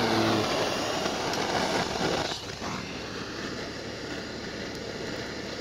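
Butane gas torch on a canister hissing as its flame lights fire starter among charcoal. The hiss is loudest for the first two seconds or so, then drops to a steadier, quieter hiss.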